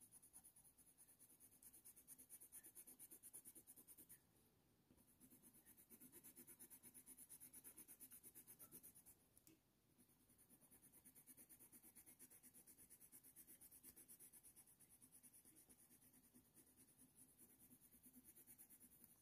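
Faint scratching of a Faber-Castell Polychromos coloured pencil on smooth hot-press watercolour paper, laying down fur. It comes in runs of quick short strokes, about five a second, with brief pauses between the runs.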